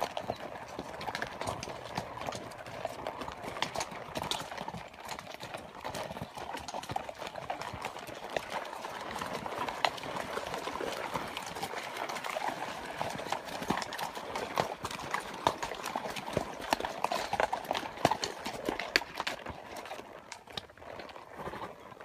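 Hooves of several trail horses clip-clopping and knocking on stones as they walk single file over a rocky riverbank, many irregular strikes over a steady background hiss, growing quieter near the end.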